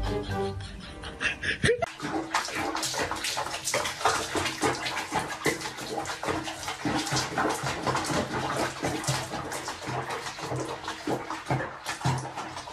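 Water splashing and sloshing in a bathtub as a cat moves about in sudsy bath water, starting about two seconds in.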